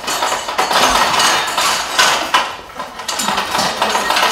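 Loud, continuous clattering and rattling, a staged sound effect for a house shaking in a flood storm.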